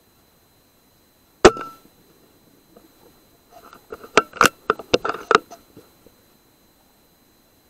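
A single shot from a BSA R10 .22 PCP air rifle, a sharp crack with a brief ring, about one and a half seconds in. A quick run of sharp clicks and knocks follows a couple of seconds later.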